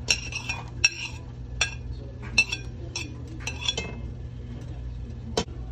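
A ceramic plate clinking against a stainless steel pot as chopped onions are tipped and knocked off it into the pot: a string of sharp, ringing clinks, about seven in all.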